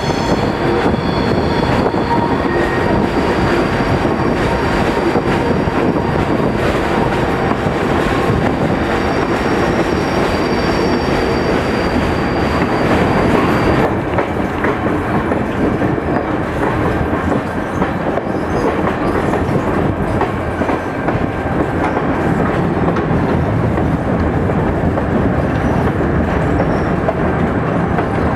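Passenger train's wheels running on the rails, heard from aboard one of its cars: a steady rumble and clatter, with high-pitched wheel squeal on a curve for about the first half, which stops suddenly about halfway.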